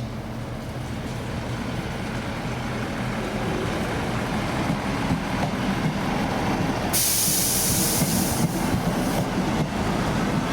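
A train running past, its noise growing steadily louder, with a loud hiss that lasts about two seconds a little past halfway.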